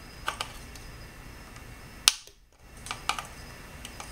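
Diagonal cutters snipping the leads of newly fitted electrolytic capacitors at the solder joints on a circuit board. There is one sharp snap about halfway through, with a few lighter clicks before and after it.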